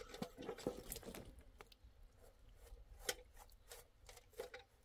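Hands working dough and flour on a large round metal tray: scattered light scrapes and taps, a few sharper ticks about a second in, again near three seconds and near the end.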